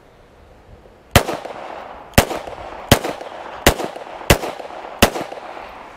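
Ruger Mark IV Target .22 LR semi-automatic pistol fired six times at a steady pace, about one shot every 0.7 seconds, starting about a second in. Each shot is sharp, with echo lingering between shots.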